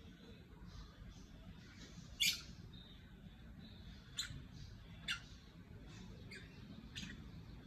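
Cockatiels giving short, sharp chirps, the loudest about two seconds in and a few more spaced about a second apart after that.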